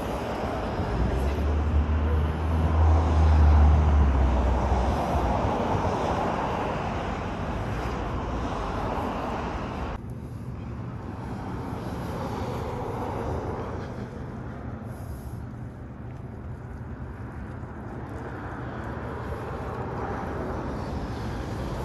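Outdoor ambience of vehicle traffic: a low rumble swells and fades over the first few seconds as a vehicle passes, then a steadier, quieter wash of traffic noise continues. The sound changes abruptly about ten seconds in.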